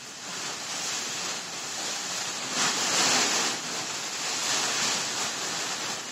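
A rushing, surf-like noise that swells and fades in slow waves, loudest about halfway through.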